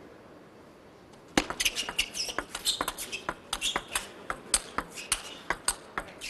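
Table tennis rally: the celluloid-type ball clicks sharply off the bats and the table in quick, irregular succession, starting about a second and a half in after a brief quiet.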